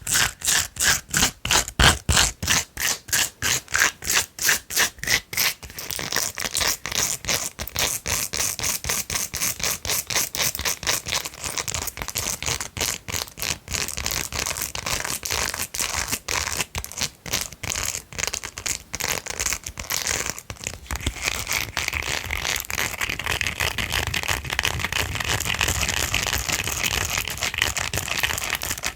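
Long nails scratching a silicone brush, in even strokes about three a second at first, then fast and continuous from about six seconds in.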